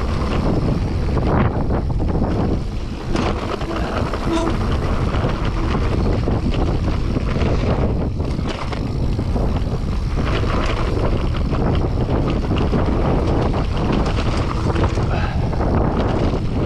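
Mountain bike riding over a wet, rough trail: wind rushing over the microphone, tyre noise and frequent knocks and rattles from the bike.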